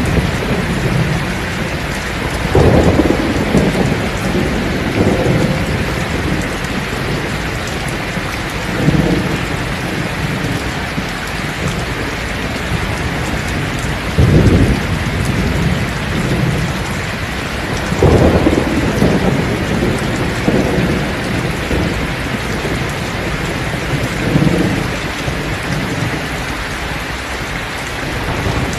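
Heavy rain pouring steadily on a thatched roof, with about five low rolls of thunder swelling up and fading across the stretch, the strongest about 3, 14 and 18 seconds in.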